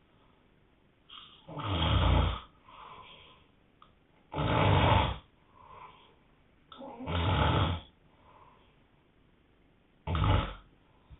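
A man snoring hard: four loud, rasping snores about every three seconds, each followed by a much softer breath.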